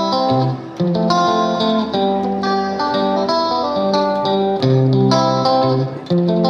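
Background music: a melody of plucked guitar notes over a steady accompaniment.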